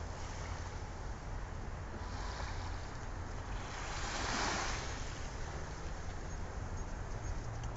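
Small waves washing onto a sandy beach, a steady hiss of surf that swells about four seconds in. Wind buffets the microphone with a low rumble throughout.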